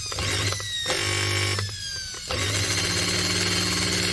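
Skil 600 W corded drill running in series with a washing machine's brushed motor while its chuck is held back by hand, a steady motor whine that sags slightly in pitch. It cuts out briefly about a second in and again for about half a second near the middle.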